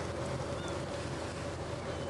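Steady low rumble and hum of a ship's engine, with wind noise on the microphone.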